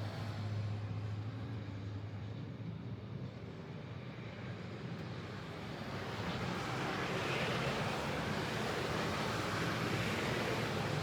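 Steady rushing noise with a low engine-like hum underneath, growing louder after about six seconds.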